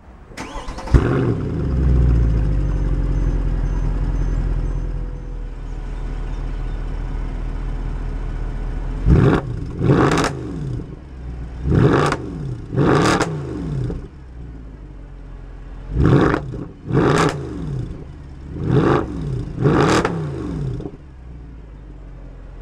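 Mercedes-Benz C63 AMG Edition 507's 6.2-litre V8 starting with a sharp flare about a second in and settling into a high idle that eases down a few seconds later. It is then revved eight times in quick pairs, each rev rising and falling back to idle.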